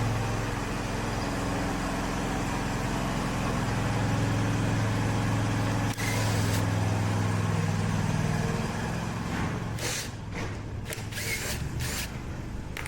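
Push mower's small engine running steadily, with one brief stumble about six seconds in. It stops near the ten-second mark, and a few sharp metallic clicks and knocks follow.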